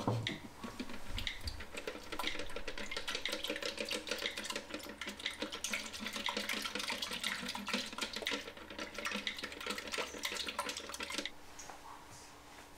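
A knock right at the start, then a black plastic film-developing tank full of processing solution being agitated: the liquid sloshes and the inside of the tank rattles quickly for about ten seconds, then stops suddenly.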